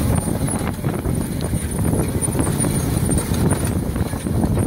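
Indecar Guerrera 1352 pull-type fine-grain seed drill working through a field: its row units and press wheels rattling and clattering in a dense, irregular patter of knocks.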